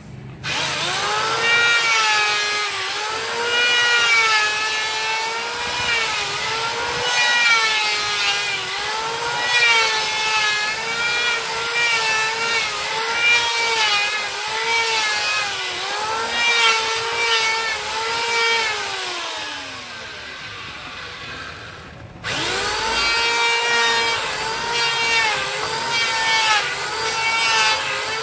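Handheld electric sander worked back and forth over a wooden door frame, its motor whine dipping and recovering with each stroke as it bears on the wood. It winds down when switched off about 19 seconds in and starts again about three seconds later.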